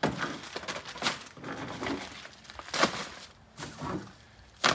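Assorted tools, parts and plastic bags being packed into a plastic storage tote: several short knocks and clatters with crinkling and rustling between them.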